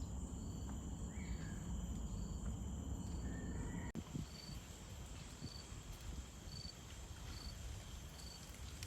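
Fairly quiet steady insect chorus with high continuous tones, and a short high chirp repeating about once a second. Two brief bird calls in the first few seconds, over a low rumble.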